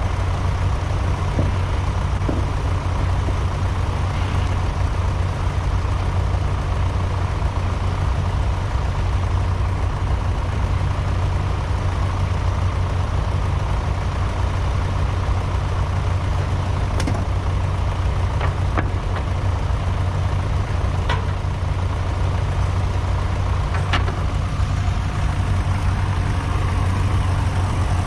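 Ferguson T20 tractor engine running steadily at an even speed, with a few sharp clicks in the second half.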